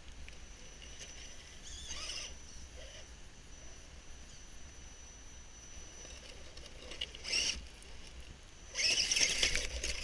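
Scale RC crawler truck's small electric motor and gears whirring in short bursts as it creeps over rock, the longest and loudest burst near the end, with a faint steady high whine underneath.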